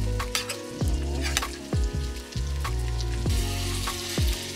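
Background music with a slow beat of deep kick drums and held notes, over a steady sizzling crackle.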